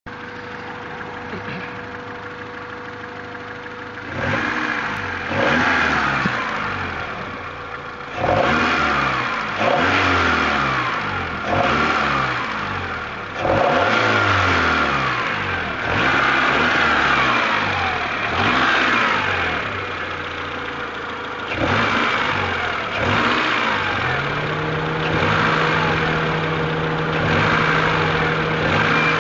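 Honda F22A6 2.2-litre four-cylinder engine idling, then revved in a series of quick blips, each rising and falling, about every two seconds, and finally held at a steady raised speed near the end. It has an exhaust leak that the owner says makes it bog.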